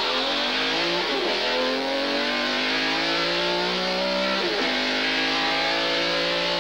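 A vehicle engine accelerating, its pitch climbing steadily and dropping back at a gear change about a second in and again about four and a half seconds in. Guitar music is mixed in.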